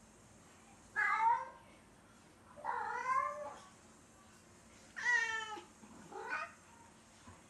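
Domestic cat meowing plaintively, four separate meows a second or two apart, the last one shorter and fainter: crying for owners who have left the room, which the owners suspect is separation anxiety.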